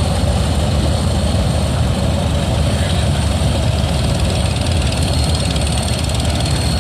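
1946 John Deere B tractor's two-cylinder engine running steadily, a loud even stream of low exhaust beats.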